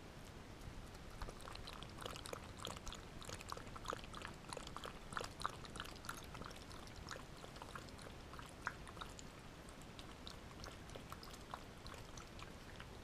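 Toy poodle lapping water from a ceramic bowl: a quick run of small wet laps and clicks, several a second.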